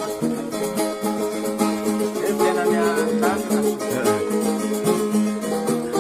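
Plucked string instrument music with a steady strummed rhythm.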